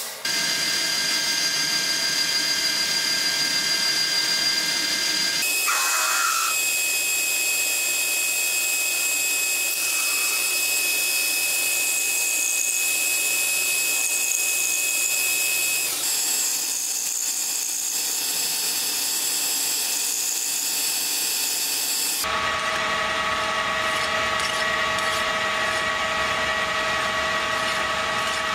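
Metal lathe turning an aluminum bushing: a steady whine from the spinning machine with the hiss of the tool cutting the metal. The sound changes abruptly three times, and for the last quarter it settles into a lower, steadier hum.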